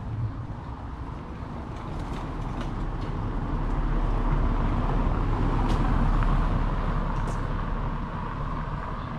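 A motor vehicle passing by: a low rumble that swells over the first few seconds, holds, then fades toward the end. A short knock sounds right at the start.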